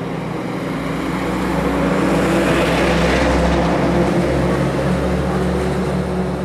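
A heavy vehicle's engine passing close by: a steady low engine drone that swells, loudest about three seconds in, then eases off.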